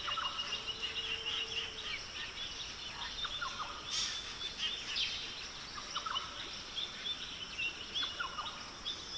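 Background birdsong: many short chirps and calls from several birds scattered throughout, over a steady high hiss.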